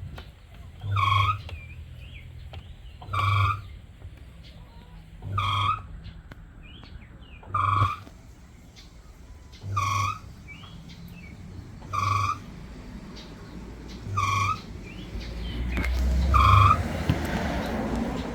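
Samsung automatic washing machine beeping: eight short, identical electronic beeps about two seconds apart, a repeating alert that goes with the machine not washing. Near the end, a low rushing noise builds up and swells under the beeps.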